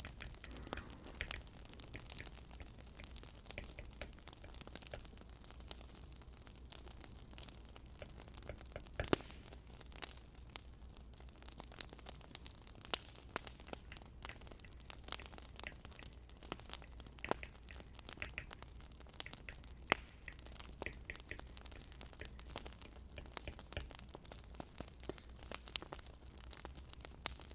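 Burning firewood crackling and popping: irregular sharp snaps of varying loudness, a few louder ones standing out, over a low steady hum.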